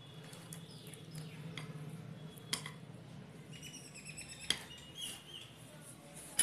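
A silicone spatula stirs and scrapes thick cake batter in a glass bowl, with two sharp taps against the glass. In the second half a bird chirps several times in the background. A steady low hum runs underneath.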